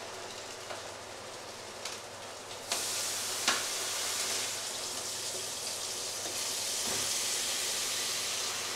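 Kitchen sink tap turned on a little under three seconds in, then water running steadily into the sink with an even hiss, with a single clink about half a second after it starts.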